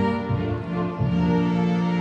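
Slow classical music from a string ensemble of violins and cello, with long held notes.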